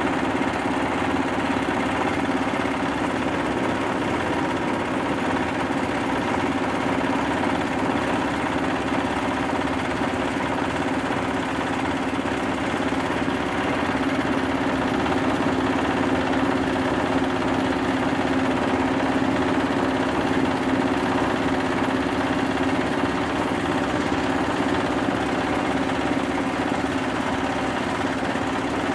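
Rice husk grinding mill running steadily under load, grinding husks into fine bran: a constant machine hum with a dense grinding hiss, unchanging throughout.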